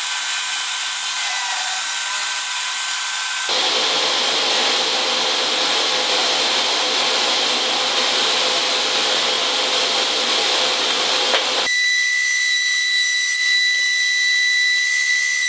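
Woodworking power tools running in turn: a table saw at first, then a loud, dense cutting noise, and from about twelve seconds in a table-mounted router spinning with a steady high-pitched whine.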